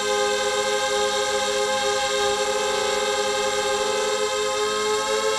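Quad250 mini quadcopter's brushless motors and propellers whining steadily in flight, the pitch wavering slightly with the throttle.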